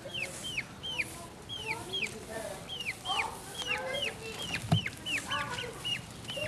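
Domestic chickens clucking, with a run of short, high, falling peeps, two or three a second. A single knock comes about three quarters of the way through.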